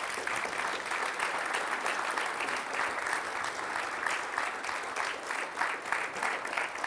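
Audience applauding, many hands clapping together; near the end the clapping begins to thin into more separate claps.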